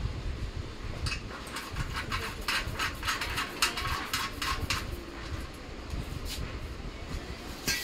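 Spanner clicking against the nut and bolt of a steel sewing-machine stand as it is tightened: a run of quick metal clicks, about three or four a second, from about a second in until near the five-second mark, over a low steady rumble.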